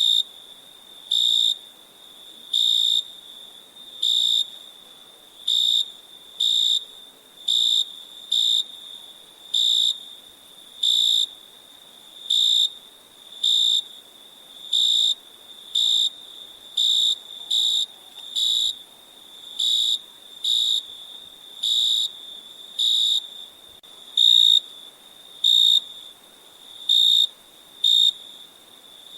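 Crickets chirping: one loud cricket gives short, high-pitched chirps about once a second at slightly uneven spacing, over a fainter steady trill of other crickets.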